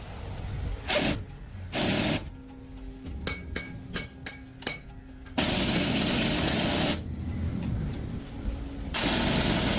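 Four bursts of hissing, the longest about a second and a half, with a quick run of sharp metallic clinks between them, over a low steady hum.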